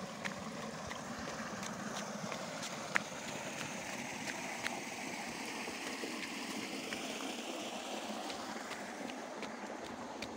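Steady rush of flowing water, with scattered light clicks over it.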